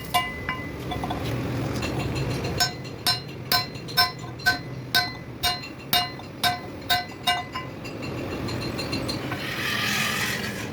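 Hammer blows on steel, each strike ringing, about two a second for several seconds, as a truck's turntable plate pin is worked on. A short hiss near the end.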